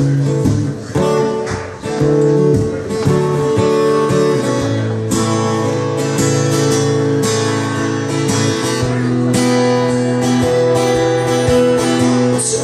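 Acoustic guitar strummed in steady chords, the notes ringing on between strokes, with no singing.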